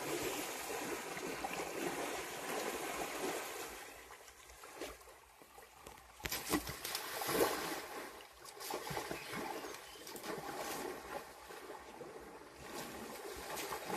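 Muddy pond water sloshing and splashing as a young Asian elephant wallows and shifts its body in it, with a few sharper splashes in the middle.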